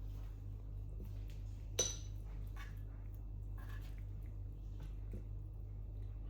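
Dishes and utensils clinking: one sharp clink about two seconds in, then a few softer taps, over a steady low hum.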